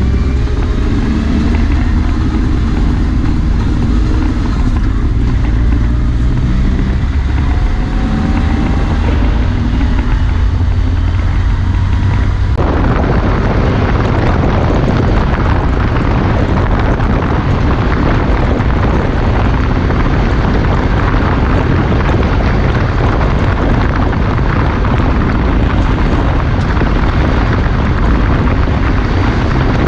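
UTV engine running with a deep rumble, its pitch rising in a few short glides as it pulls away. About twelve seconds in, a loud, rough rushing noise of wind buffeting and rattle on the in-cab microphone suddenly takes over, with the engine still running underneath.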